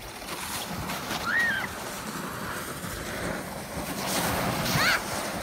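Plastic sled sliding down a snow-covered paved driveway: a steady scraping hiss of the sled over thin snow. Two short high squeals rise and fall, one about a second in and one near the end.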